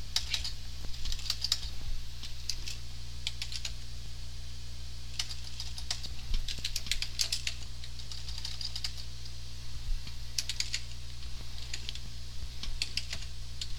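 Typing on a computer keyboard in short bursts of keystrokes separated by pauses, over a steady low electrical hum.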